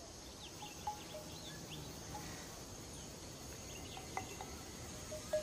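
Faint forest ambience: a steady high insect buzz with scattered short chirps and calls; a few more short notes come in near the end.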